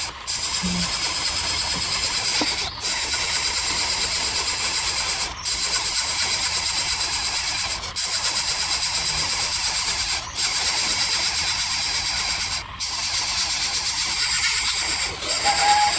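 Steady, loud high-pitched buzzing that breaks off briefly about every two and a half seconds, with a short call near the end.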